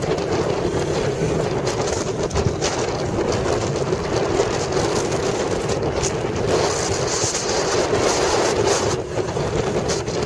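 Wind rushing over a phone microphone on a moving motorcycle, with the motorcycle running underneath, and occasional short scuffs as something brushes the microphone.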